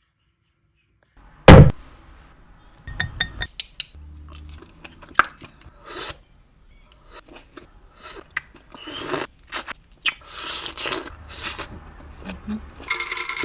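A utensil clinking and scraping against a fruit cup, with one loud knock about a second and a half in. Close-up chewing and biting of fruit follows in scattered bursts.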